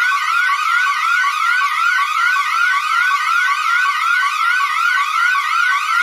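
Emergency alert alarm tone: an electronic siren rising in quick repeating sweeps, about three a second, steady and loud.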